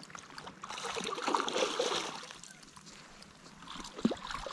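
A hooked pink salmon splashing and thrashing at the surface of shallow water as it is landed, loudest about one to two seconds in, with a smaller flurry of splashes near the end.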